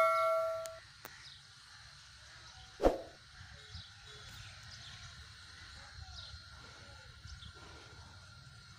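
A bright electronic bell ding from a subscribe-button sound effect rings out at the very start, followed by a single knock about three seconds in; under it, a faint open-air background with small birds chirping now and then.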